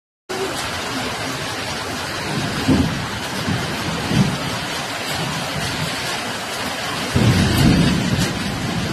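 Heavy rain falling steadily, with low rumbles of thunder, short ones around three and four seconds in and a longer one from about seven seconds in.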